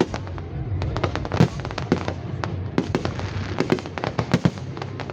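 Fireworks display: aerial shells bursting in quick, irregular bangs and cracks, several a second, over a steady low rumble. The loudest bang comes about a second and a half in.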